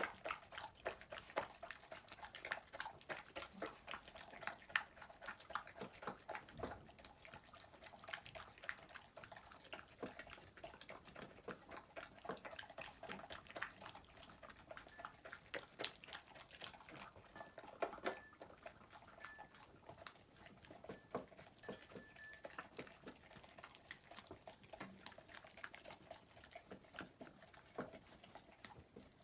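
A pet eating its meal: a quiet, continuous run of small chewing and mouth clicks.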